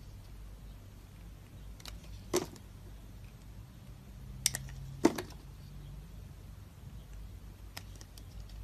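Knife cutting through dry soap, making about six sparse, crisp clicks and snaps, two louder ones about two and five seconds in, over a low steady hum.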